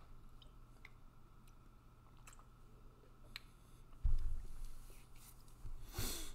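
Faint, scattered small clicks over a low steady hum, then a sudden low thump about four seconds in and a short rushing noise near the end, like desk and handling noises close to the microphone.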